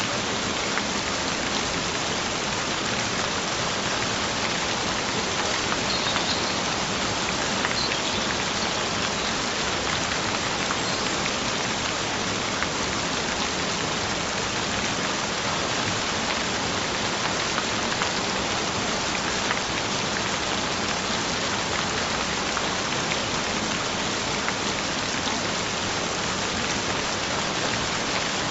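Steady rain falling, an even hiss of pattering drops with no change in strength.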